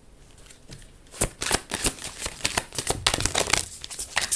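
Tarot cards shuffled by hand: a quick run of crisp card-on-card flicks and riffles that starts about a second in and goes on for about three seconds, thinning out near the end.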